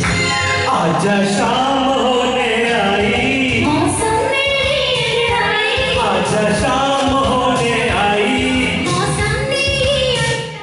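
A man and a woman singing a duet into microphones over recorded backing music played through the hall's PA. The music stops about ten seconds in.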